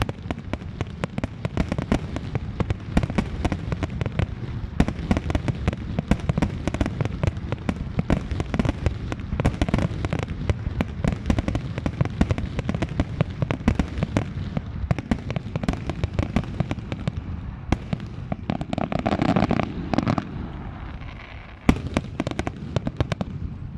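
Large fireworks display: a dense, continuous barrage of bangs and crackling bursts, thinning out near the end.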